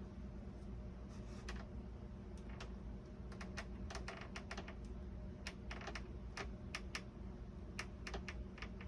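Scattered light clicks and taps of small tools and model parts being handled, coming more thickly in the middle, over a steady low hum.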